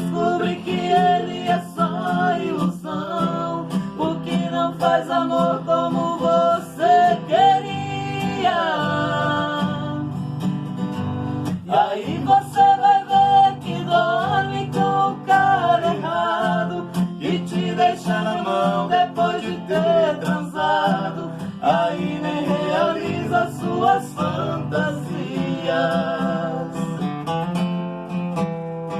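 A voice singing a melody over acoustic guitar, with a steady rhythm of short strokes across the strings.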